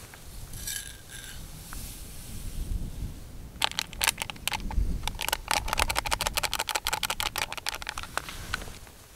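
Instant coffee granules poured from a stick sachet rattling into an empty Snow Peak titanium 300 mug. It is a dense patter of tiny ticks on the thin metal, starting about three and a half seconds in and lasting about five seconds.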